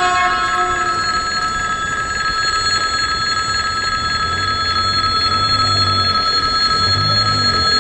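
Level-crossing warning bell ringing continuously, a steady electric bell that sounds while the crossing is closed for an approaching train. A low engine hum comes in about halfway through.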